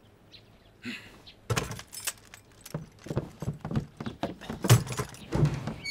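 Irregular metallic clinking and jangling with soft knocks, starting about a second and a half in, like the metal fittings of carried swords rattling as people move.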